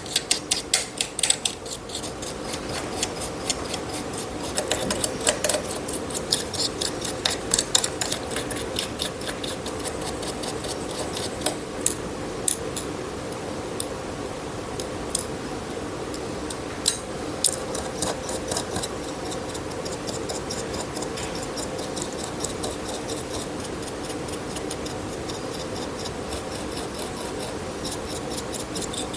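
Small metal hand tools clicking and scraping against a wristwatch's case and parts during disassembly, in irregular runs of quick clicks that are busiest at the start and again about two-thirds of the way in. A steady low hum runs beneath.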